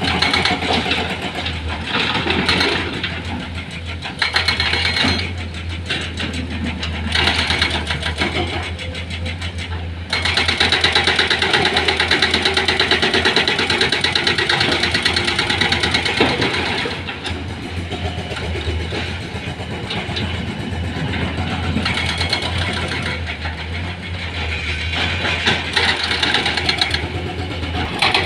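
Heavy machinery's diesel engine running steadily, growing louder in several surges, the longest lasting several seconds around the middle.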